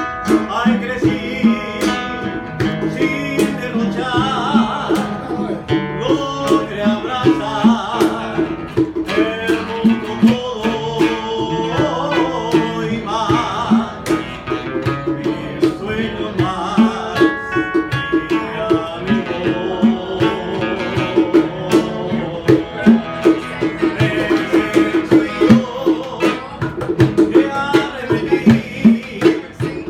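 Live acoustic band music: two acoustic guitars played together over a steady cajón beat, with a man singing.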